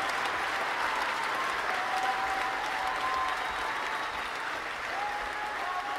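Audience applauding steadily, with a few drawn-out cheers over it.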